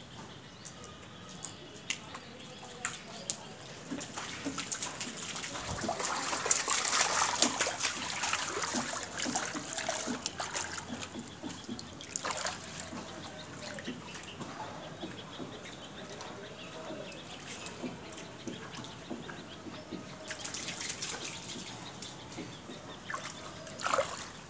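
Water trickling and splashing, with many small rapid splashes that grow louder for a few seconds, ease off, and pick up again later.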